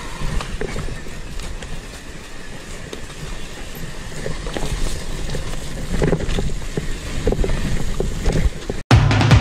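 Commencal Meta AM 29 mountain bike rolling fast down a dirt and leaf-litter trail: steady tyre and rolling noise, with small knocks and rattles over bumps. Just before the end it cuts off abruptly and drum-heavy music starts.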